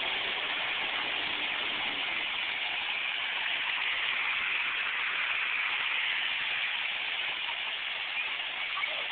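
Pond fountain spraying water: a steady splashing hiss that holds even throughout.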